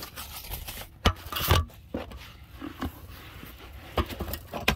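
Packing noises from a plastic ammo can: scraping and rubbing with several sharp knocks, the loudest about one and a half seconds in, as the Jackery 240 power station and its foam inserts are fitted back into the box.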